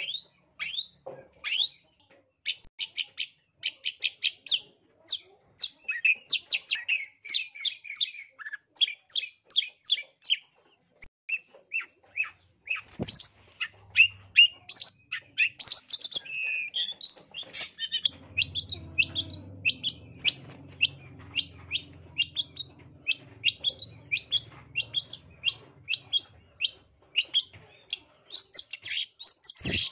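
Long-tailed shrike singing in full voice: a rapid, unbroken run of short, sharp chirps and harsh calls, several a second, many of them falling in pitch.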